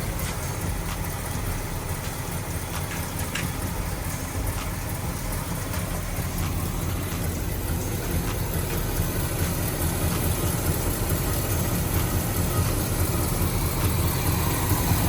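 1972 Oldsmobile Cutlass engine idling steadily, getting a little louder toward the end.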